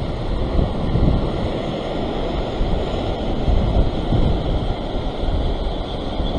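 Heavy ocean surf washing and breaking against a rock ledge, a continuous churning roar that swells and eases slightly, with wind buffeting the microphone.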